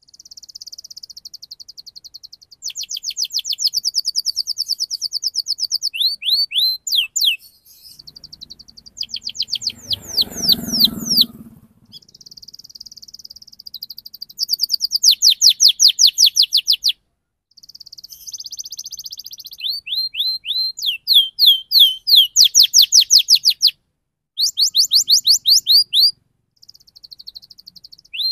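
Domestic canary singing a fast rolling song: long trills of rapidly repeated high notes, some buzzy and some sweeping down in pitch, broken by short pauses. A brief low rumble sits under the song about ten seconds in.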